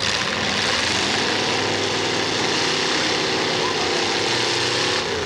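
Race car engines running hard together, several pitches drifting slightly up and down over a dense wash of engine and exhaust noise.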